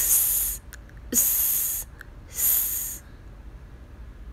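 A voice making the phonics sound for the letter s three times: a hissing "sss", each one shorter than a second with a short gap between them.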